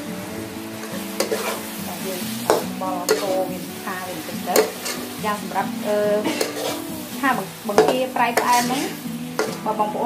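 Long-handled metal ladle stirring and scraping shrimp around a metal wok, with the sauce sizzling in the hot pan. The ladle's repeated scrapes and clanks, ringing off the wok, start about a second in and keep up in quick succession.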